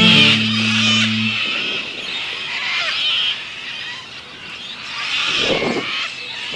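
Film soundtrack: a low held music chord stops about a second in, leaving a hissing ambient bed with high chirps, and a brief whoosh that rises and falls near the end.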